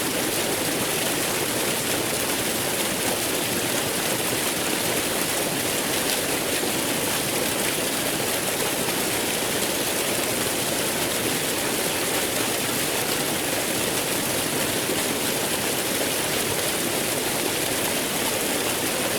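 Waterfall flowing: a steady, unbroken rush of falling water.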